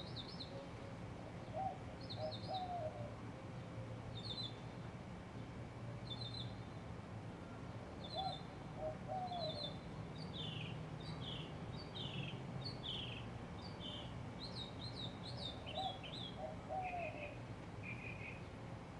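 Birds chirping in short repeated phrases, with a lower three-note coo, like a dove's, coming back about every seven seconds, over a steady low hum.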